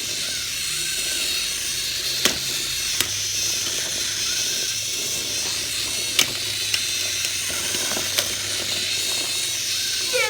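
A small fighting robot's spinning weapon whirring steadily with a hiss; it is very loud. Several sharp knocks come on top of it as the robots hit each other.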